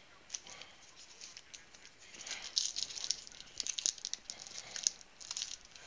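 Hands handling trading cards and a sealed card pack: a run of light, crisp crinkles and flicking ticks that come in quick clusters, busiest from about two seconds in.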